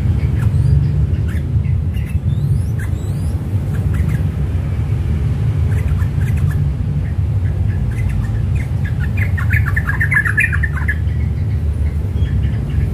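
Caged yellow-vented bulbul giving scattered short chirps, with a burst of rapid chattering notes about nine to eleven seconds in, over a steady low rumble.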